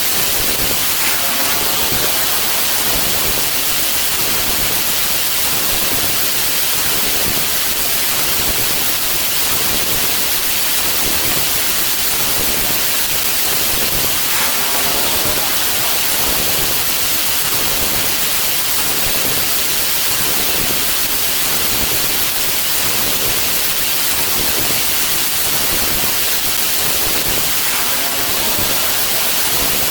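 Loud, steady static hiss like white noise, brightest in the treble and unchanging throughout.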